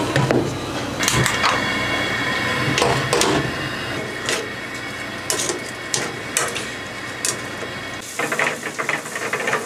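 Shrimp, garlic and onion frying in olive oil in a small pan, with kitchen tongs clicking and scraping against the pan as they turn the shrimp. The sizzle turns to a denser crackle near the end.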